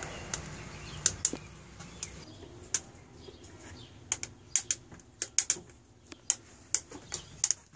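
Coffee beans crackling in second crack: sharp, irregular snaps, sometimes two or three close together, over a low steady hum that drops away near the end.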